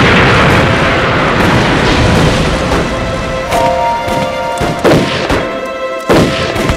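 An explosion in the water at the start, trailing off into a long rush of spray, then a few sharp rifle shots in the second half. Dramatic background music with sustained tones comes in partway through.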